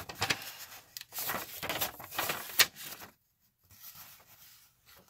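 Folded paper instruction sheet rustling and crinkling as it is handled and unfolded, with one sharp crackle about two and a half seconds in.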